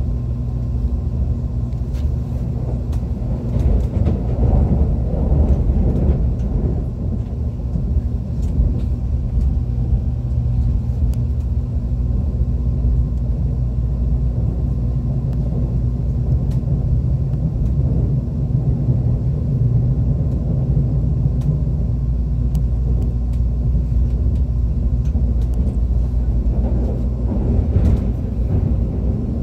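ITX-Maum electric multiple-unit train running: a steady low rumble of wheels on rails with a faint steady hum over it and a few scattered clicks.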